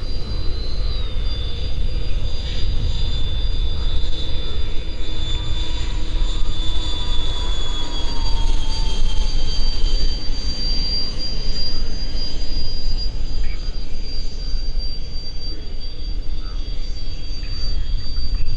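Electric ducted fan of a 50 mm EDF RC model jet whining in flight overhead. The high, steady whine drops in pitch about a second in and slides lower again around eight seconds in, over a steady low rumble.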